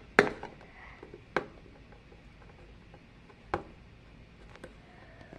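Hands handling a plastic-wrapped cardboard board-game box: a few sharp taps and clicks of fingers on the box and its wrapping, the loudest about a quarter second in, with faint rustling between.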